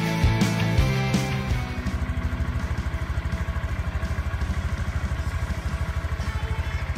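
Music stops about two seconds in, giving way to a Honda Grom's single-cylinder engine idling with a quick, even beat of about a dozen pulses a second.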